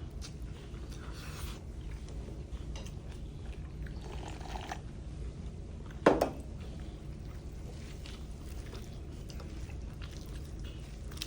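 Soup being slurped and swallowed from a bowl in soft liquid gulps, with a single sharp knock about six seconds in.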